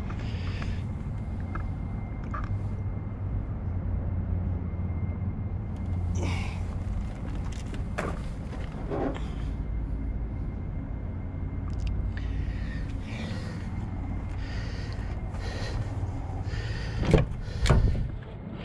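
1999 Toyota Surf's engine idling, a steady low rumble through a loud exhaust that may need repairing. Near the end come a couple of sharp clicks as the driver's door is opened.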